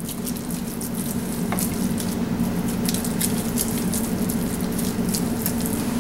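Spatula spreading and smoothing a thick chicken-and-rice casserole mixture in a glass Pyrex baking dish: scattered soft scrapes and squishy ticks over a steady low hum.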